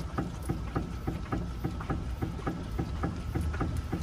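Worn stabilizer link (bieleta) on a Fiat Palio knocking as the car is rocked on its wheels: quick, regular clicks, about four a second. Its ball joint has failed, so the pin knocks against the metal inside the link.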